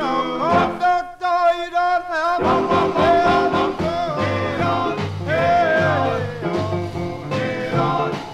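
1950s R&B vocal group singing in harmony, played from a shellac 78 rpm record. A fuller band accompaniment with bass joins about two and a half seconds in.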